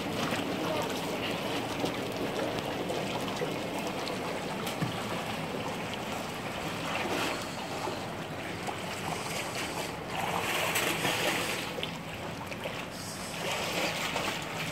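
Steady wash of pool water trickling and lapping at the pool's edge, with louder swells of noise about ten and thirteen seconds in.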